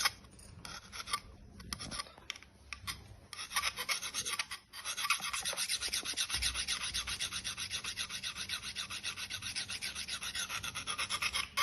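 A steel kitchen knife blade is scraped along a handheld sharpening file (filing rod). A few irregular strokes come first, then from about five seconds in a long run of rapid, even back-and-forth strokes.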